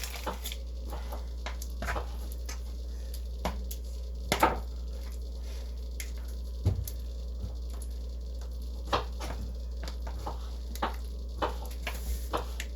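Scattered light taps and clicks of kitchen utensils and dishes during food preparation, one every second or so, the loudest about four and a half seconds in, over a steady low hum.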